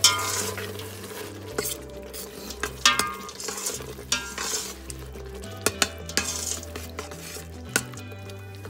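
Metal spoon stirring thick tomato-sauced fusilli and melting cheese in a stainless steel pot, scraping and knocking against the pot's sides and bottom every second or so, with the sauce sizzling.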